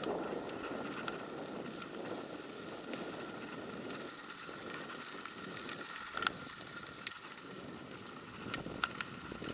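Mountain bike rolling along a dirt and gravel track: a steady crunch of tyres on loose ground, with several sharp clicks and rattles from the bike over bumps in the second half.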